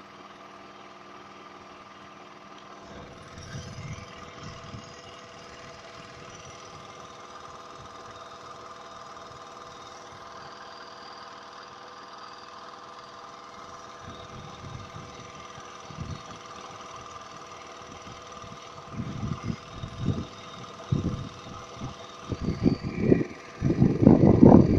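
An engine running steadily with an even hum. From about 19 seconds in, a series of louder low rumbles breaks in, the loudest near the end.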